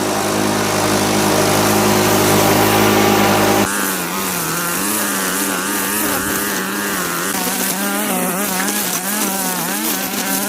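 Lawn tractor engine running at a steady pitch; about three and a half seconds in the sound cuts abruptly to the engine with its pitch wavering up and down.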